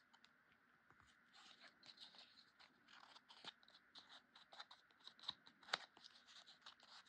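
Faint crinkling and scratching of stiff cardstock being bent and pressed by hand, with scattered small clicks and one sharper click a little before the end.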